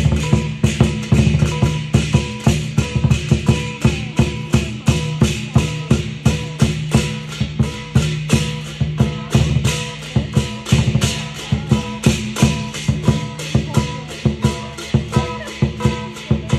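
Live Chinese lion dance percussion: a big drum beaten with clashing cymbals in a fast, steady beat, about three strikes a second.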